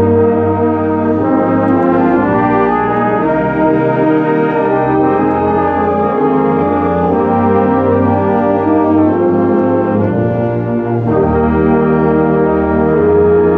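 Brass music playing loudly and continuously, held chords shifting every second or so, with a change in the bass line about eleven seconds in.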